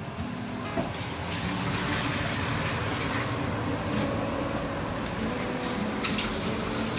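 Water running from a kitchen tap into a stainless steel sink while a metal pot is washed, a steady rushing splash.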